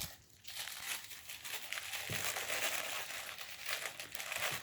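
Wrapping being crinkled and rustled as a small wrapped gift is unwrapped by hand: a continuous crackly rustle of many small crinkles.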